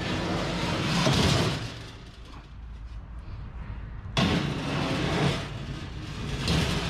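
Ramps being slid and set down onto a vehicle's load area: three bouts of scraping and clattering with short gaps between them.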